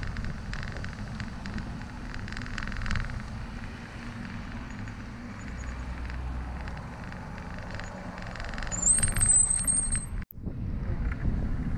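Road traffic passing and a low wind rumble on the microphone of a moving bicycle. About nine seconds in, a brief high squeal sounds, and the audio drops out for an instant just after it.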